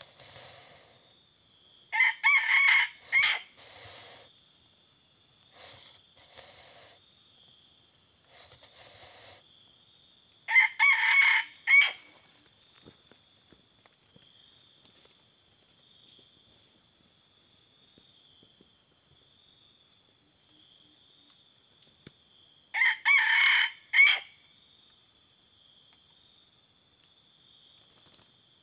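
Red junglefowl decoy rooster crowing three times, about ten seconds apart, each crow short and ending in a separate clipped last note, over a steady high drone of insects. Fainter calls come in between.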